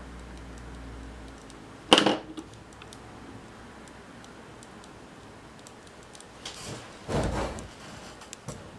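Small plastic gear assembly from a camcorder tape mechanism being handled in the fingers: light clicks and ticks, with one sharp clack about two seconds in and a duller knock with rustling near the end.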